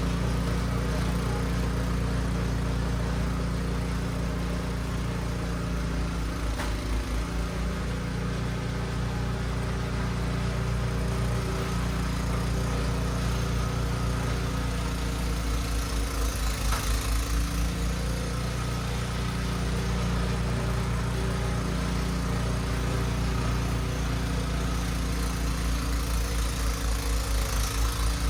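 Husqvarna gas snow blower's engine running steadily, its note dipping and pulsing briefly a few times, about a quarter of the way in, just past halfway and near the end.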